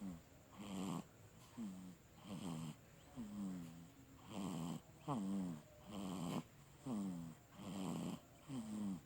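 Baby snoring in her sleep: short, rough snores on the breath, about one a second, several sliding down in pitch.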